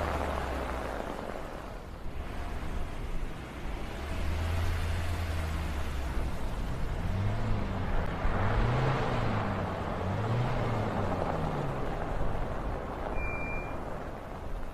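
A car driving along a snowy street and pulling up, over a steady hiss of wind and blowing snow, with a low hum and a slow rising-and-falling low tone. A short high beep near the end.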